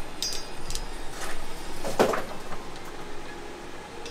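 A 3/8-inch hard fuel line and a flaring tool being handled and set up in a bench vise: a scatter of light metallic clicks and knocks, the loudest about two seconds in.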